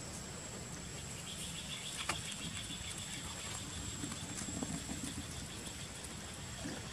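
Outdoor ambience with insects: a thin, steady high drone throughout, a rapid pulsing chirp from about a second in until about halfway through, and a few faint light clicks.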